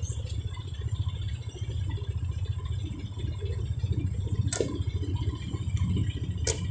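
A motor vehicle's engine running with a low, even rumble and some light rattling, with two sharp clicks about four and a half and six and a half seconds in.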